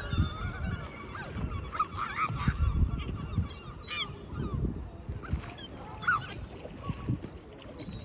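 A flock of gulls calling, many overlapping cries rising and falling in pitch, as they compete for bread on the water.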